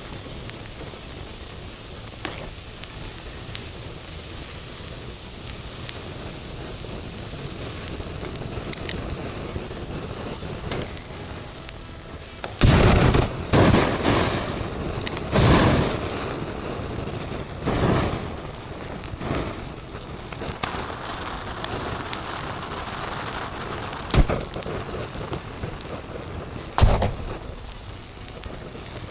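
A stack of disposable gas lighters burning with a steady hiss. About 12 seconds in, the lighters start bursting: several loud blasts in quick succession, each with a whoosh of escaping gas flame, then single bangs a few seconds apart near the end.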